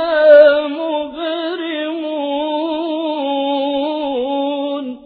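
A man's voice in melodic, mujawwad-style Quran recitation: one long ornamented phrase, with a brief break about a second in, then a held, wavering note that stops just before the end.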